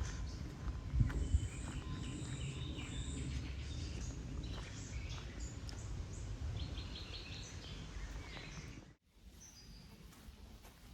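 Woodland ambience: small birds chirping and calling over a low rumbling background, with two thumps about a second in. About nine seconds in, the sound cuts off abruptly to a much quieter background.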